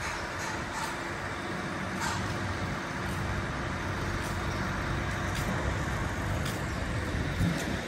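Street ambience of an open city square: a steady low rumble of motor traffic, with a few faint clicks.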